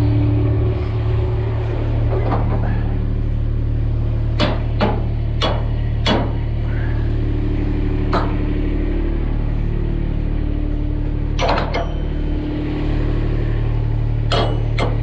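A large engine running steadily with a deep, even drone. Irregular sharp clanks come over it, several close together about four to six seconds in and again near the end.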